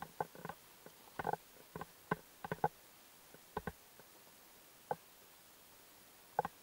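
Footsteps on a forest dirt trail: scattered, irregular soft thuds and light crunches from walkers, with quiet stretches between them.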